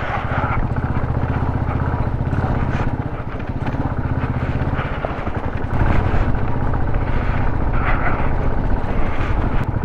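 Royal Enfield Electra's single-cylinder engine running under load while climbing a steep, broken uphill road, growing louder about six seconds in.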